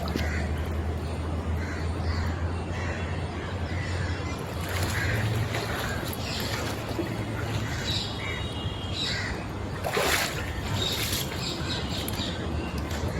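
Birds calling in short, scattered calls over a steady low hum.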